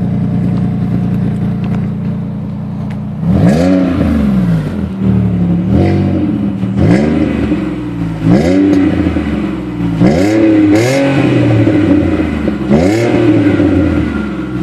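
A six-cylinder car engine with an aftermarket exhaust idles steadily for about three seconds. Then it is blipped hard about seven times, each rev rising sharply and falling back toward idle.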